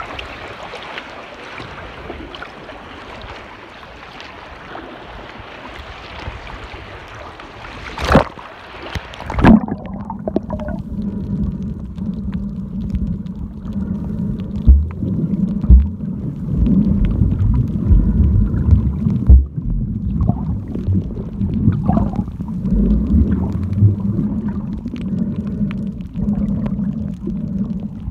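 Seawater sloshing and splashing at the surface, then, after a sharp splash about a third of the way in, the muffled underwater sound over a coral reef: a steady low rumble with low thumps and a scatter of faint crackling clicks.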